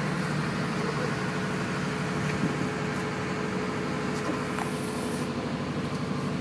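Dive boat's engine running steadily with a low, even hum.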